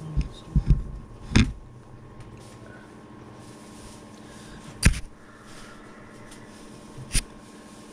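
A few short knocks over a faint steady hum: a quick cluster in the first second and a half, then two single knocks a few seconds apart.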